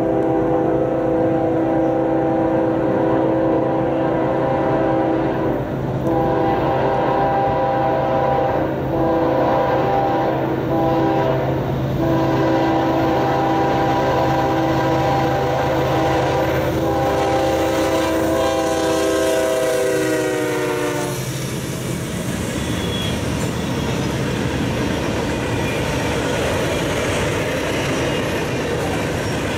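Freight locomotive's multi-note air horn sounding a series of long blasts with short breaks as the train approaches; about 18 seconds in its pitch slides down as the locomotive passes, and it cuts off about 21 seconds in. Then the freight cars roll by with a steady rumble and wheel clatter.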